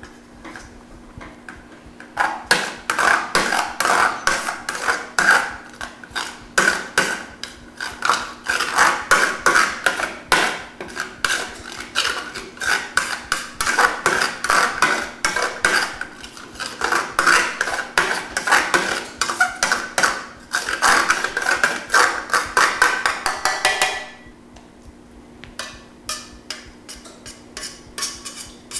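A spoon scraping spaetzle batter against a stainless steel colander, pressing it through the large holes in rapid, rhythmic metal-on-metal strokes. The scraping starts about two seconds in and stops abruptly near the end, followed by a few light clinks, over a steady low hum.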